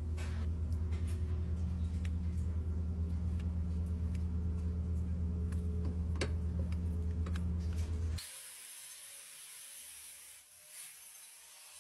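A steady low motor hum with scattered faint clicks as a hoof knife pares the sole horn of a cow's claw. After about eight seconds the hum cuts off abruptly, leaving a quieter steady airy hiss.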